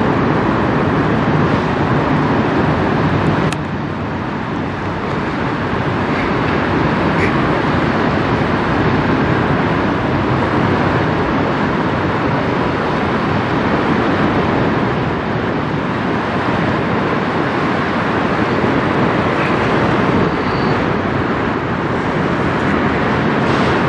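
Steady rushing rumble of road traffic on the bridge overhead, mixed with the low drone of the passing CSL Welland bulk carrier. The level dips briefly about three and a half seconds in.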